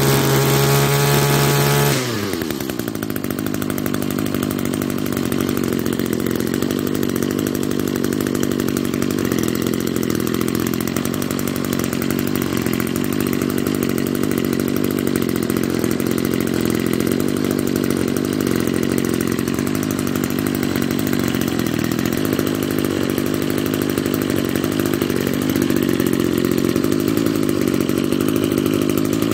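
Echo SRM-210 string trimmer's small two-stroke engine running at high revs, then dropping about two seconds in to a lower, steady speed that holds, rising a little near the end. The engine keeps running with its stop switch in the stop position: the kill switch is not working.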